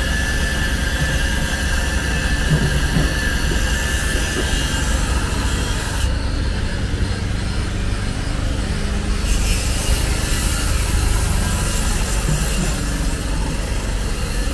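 Angle grinder cutting metal, a steady high whine over a low rumble; the high hiss drops away for about three seconds around the middle, then returns.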